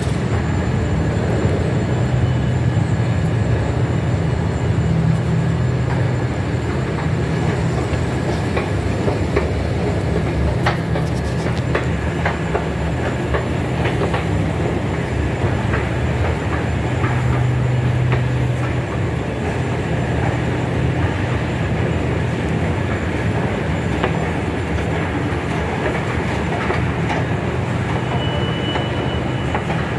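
Steady low rumble of metro station machinery noise, with a few faint clicks.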